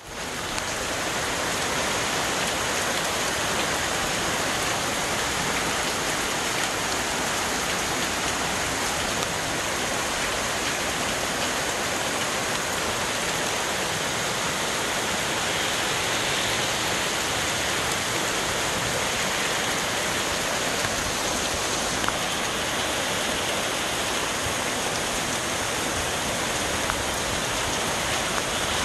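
Steady rain falling on trees, leaves and ground: an even, unbroken hiss with no let-up.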